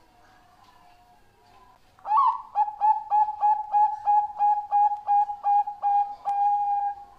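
Zebra dove (perkutut bangkok) singing: about two seconds in, a loud call opens with a rising note and runs into a quick, even series of short clipped coos, about three a second, ending on a longer held note. Fainter coos are heard before it.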